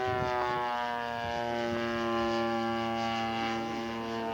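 Radio-controlled scale P-40 model's engine and propeller running in flight: a steady droning tone whose pitch eases down slightly in the first second, then holds.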